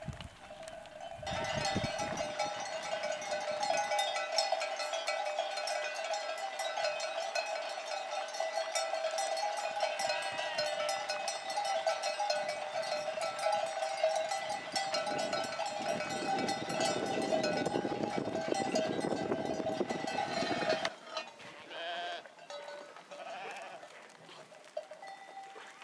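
Many bells worn by a moving flock of sheep and goats ringing and clanking together in a dense, continuous jangle. It stops abruptly near the end, leaving fainter sounds.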